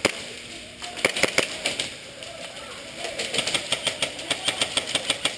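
Airsoft guns firing: a single sharp shot, a short burst of shots about a second in, then a fast string of shots at roughly six a second from about three seconds in.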